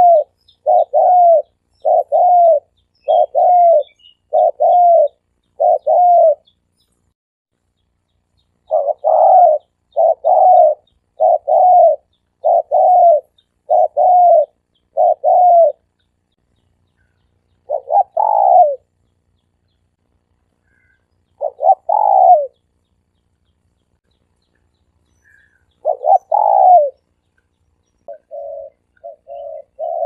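Spotted dove cooing: loud, arching coos about one a second in runs of six or seven, then single doubled coos about four seconds apart, and a softer, quicker run of coos near the end.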